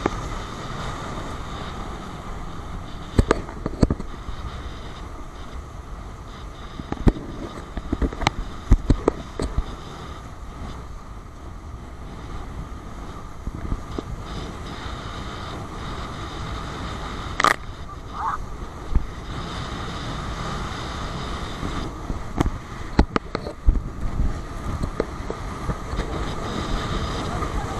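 Wind buffeting the camera microphone and water rushing past an inflatable banana boat towed at speed over a speedboat's wake, with irregular sharp knocks and slaps as the boat bounces and spray hits.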